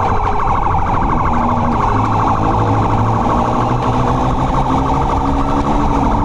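Police motorcycle siren warbling rapidly and steadily, over the running note of a motorcycle engine that drifts slightly in pitch with the throttle.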